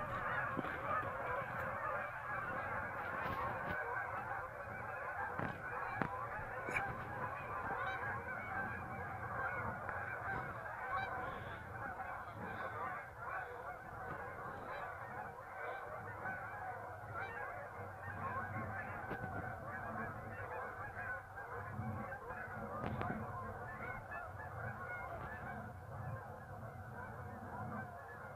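A large flock of geese honking continuously in a dense, overlapping chorus as they leave the marsh and fly over. The chorus eases off slightly toward the end.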